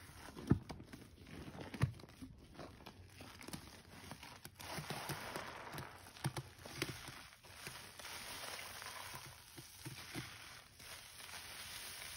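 A soap-soaked sponge being squeezed by hand, with irregular crackling of the suds and two sharper squelches in the first two seconds.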